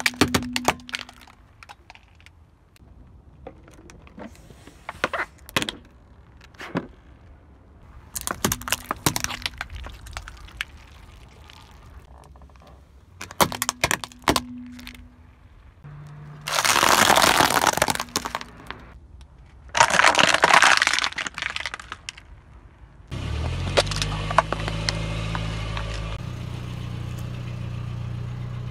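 Plastic objects cracking and snapping under a slowly rolling car tyre: a run of sharp cracks, then two longer, louder crushing bursts of a second or two each midway. Over the last few seconds a car engine runs steadily close by.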